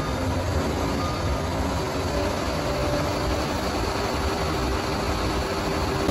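Bulldozer's diesel engine running steadily, with a dense low rumble.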